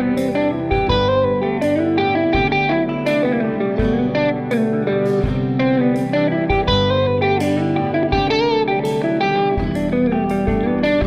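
Background music: guitar playing a run of plucked notes over a steady bass.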